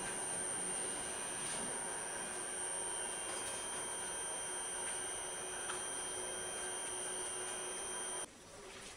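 Steady high-pitched electronic whine: several held tones over a hiss, cutting off abruptly about eight seconds in.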